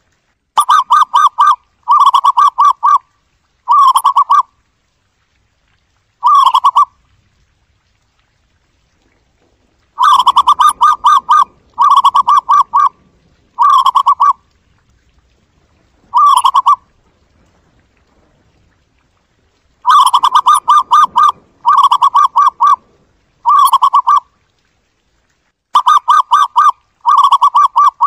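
Zebra dove calling: short phrases of rapid staccato cooing notes, repeated in bouts with silent pauses of a few seconds between them.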